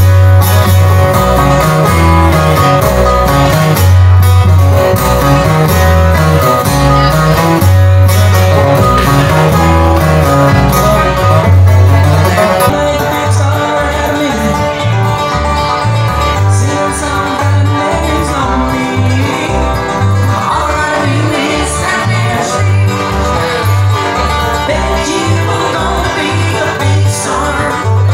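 A live band playing country-style music with plucked strings over a bass line. About halfway through, the heavy bass drops back and the playing turns lighter and a little quieter.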